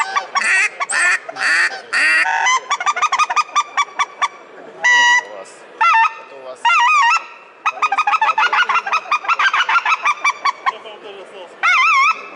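Ketner mouth-blown goose call imitating geese: loud single honks, broken by two long runs of quick short clucks, one in the first third and one after the middle.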